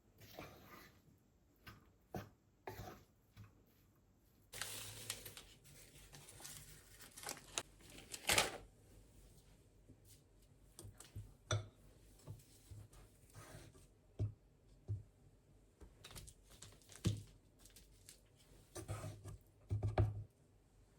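Handling noises: about four seconds of rustling or tearing, then a scatter of light clicks and knocks.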